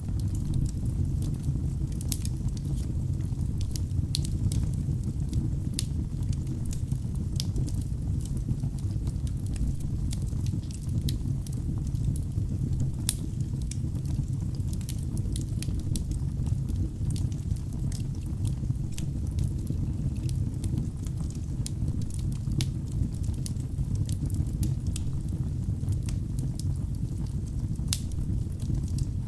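Wood logs burning in a fireplace: a steady low rumble of flames with frequent, irregular sharp crackles and pops from the wood.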